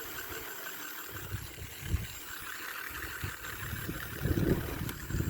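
Toy remote-control car's small electric motor whirring as its wheels spin, with a steady high whine and a few knocks, the loudest about four seconds in.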